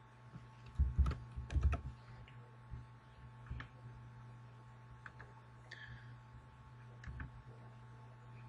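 Clicks and taps of a computer keyboard and mouse: a quick cluster about a second in, then single clicks every second or two, over a steady low hum.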